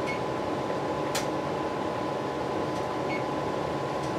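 Steady whir of a kitchen fan, with a faint constant high hum and a single light click about a second in.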